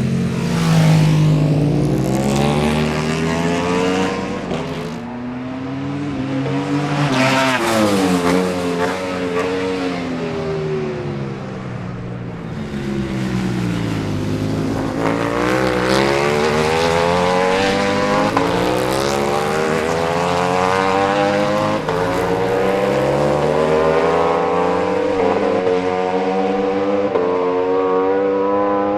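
Ducati Panigale V4 superbikes' V4 engines at racing speed on track, loud and high-revving. The pitch falls away at the start and again about a quarter of the way in, then from about halfway climbs in a series of rises broken by short drops.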